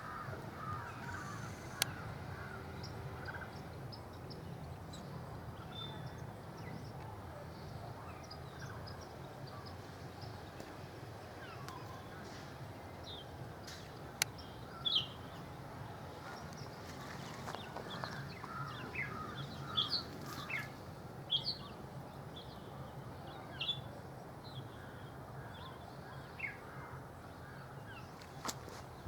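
Birds calling outdoors: scattered short chirps and harsher caw-like calls over a steady low background hum, with a couple of sharp clicks.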